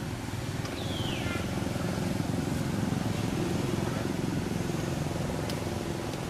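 A baby macaque gives one high squeal that falls in pitch, about a second in, over a steady low rumble like a distant running engine.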